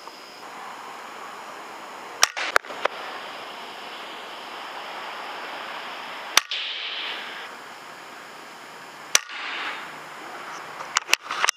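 Air rifle shots: sharp cracks about two seconds in with two more quick ones after, single cracks around six and nine seconds in, and a fast cluster near the end, over a steady hiss.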